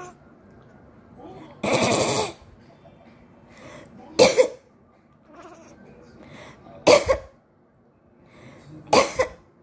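A person coughing four times, a couple of seconds apart, to set off a cat that reacts to coughing. Fainter cat sounds come in between the coughs.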